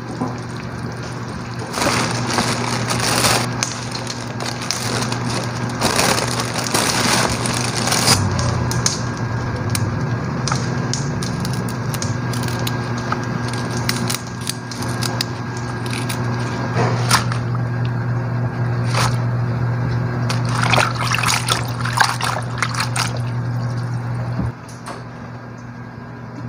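Kitchen range-hood fan running with a steady low hum, under scattered knocks and clatter of cooking prep: knife and cookware handling. The hum drops away near the end.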